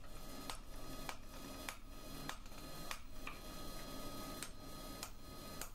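Faint, irregular light clicks or taps, roughly one every half second to second and a half, over a low steady hum. There are no loud hammer blows.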